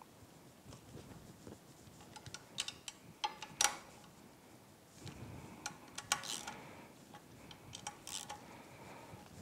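Hand ratchet and socket tightening the bolts of an outboard lower unit's input shaft seal housing: short runs of quick ratchet clicks, in three bursts.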